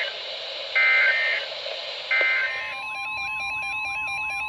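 Emergency Alert System SAME header bursts, short bursts of two-tone digital data chirping about every second and a half, sounding twice more before giving way, about three seconds in, to a steady attention tone that announces the next severe thunderstorm warning.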